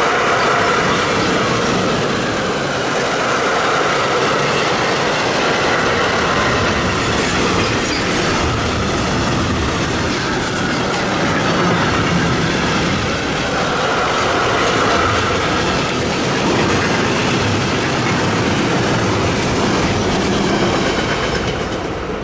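A train passing close by: steady rolling noise of wheels on rails that holds for about twenty seconds and eases off near the end.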